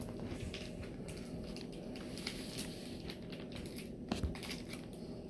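Quiet room tone with a steady faint hum and a few faint taps and handling noises, one slightly louder about four seconds in.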